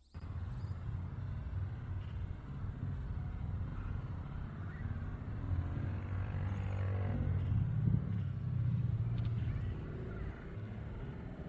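Low, steady rumble of street traffic, with a motor vehicle passing close by, swelling to its loudest about eight seconds in and then fading.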